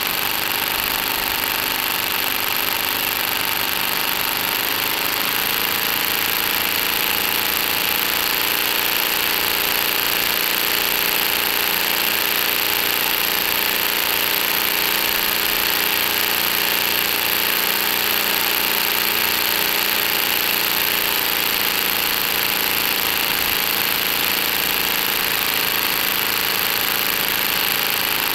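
Lego brick model of an inline-seven engine running steadily, its plastic crankshaft and pistons working with a continuous mechanical clatter and hum. The pitch shifts slightly about five seconds in.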